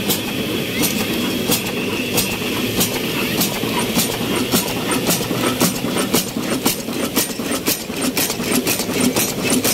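Old 22 HP horizontal stationary diesel engine with a large flywheel, running steadily at slow speed: a continuous low chugging with a sharp regular click about twice a second.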